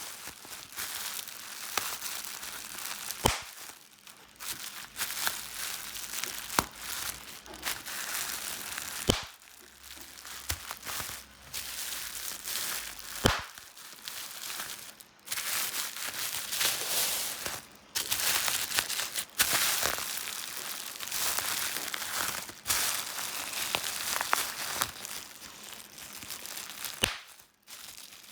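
Plastic bubble wrap being handled and squeezed: continuous crinkling, with single bubbles bursting in sharp pops every few seconds.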